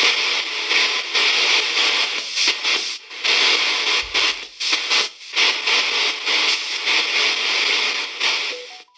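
VBE KC-GhostBox app sweeping through its audio banks: loud radio-style static and hiss, chopped into short fragments by rapid gaps as it jumps from step to step. It cuts off abruptly just before the end.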